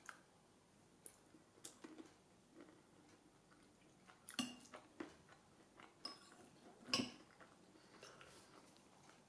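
A person eating oat porridge from a spoon: quiet chewing with scattered soft clicks and taps of the spoon, the loudest about seven seconds in.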